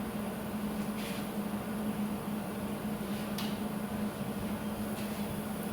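A steady electrical hum over a low, even hiss, with a few faint soft brushing sounds about one, three and a half and five seconds in.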